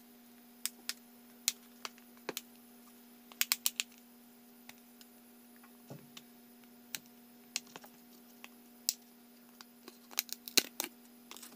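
Sharp small clicks and taps, some in quick runs of three or four, as a smartphone is unclipped from a repair holder, over a steady low hum.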